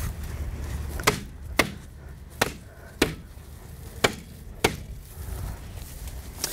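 A rubber mallet knocking a snap-track base into place. Seven blows, mostly in pairs about half a second apart, with a pause of about a second between pairs.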